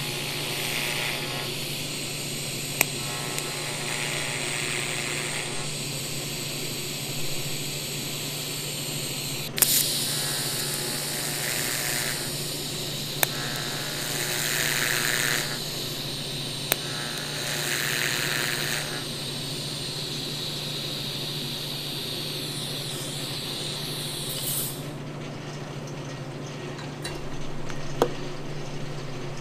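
TIG welding arc on steel, hissing steadily over a low machine hum, as segmented press brake die fingers are welded together. The arc cuts out near the end, leaving only the hum.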